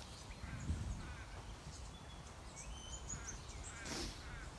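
Faint birdsong: scattered short chirps and whistles over quiet outdoor background noise, with a brief rush of noise about four seconds in.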